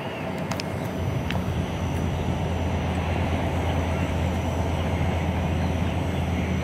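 Airbus A350-941 jet engines running at taxi power as the airliner rolls past: a steady low rumble that grows a little louder about a second in.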